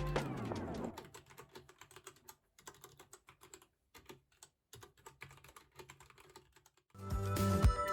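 Typing on a Royal Kludge RK84 mechanical keyboard with brown switches: a faint, irregular run of quick key clicks. Background music fades out in the first second, and music with chiming tones starts near the end.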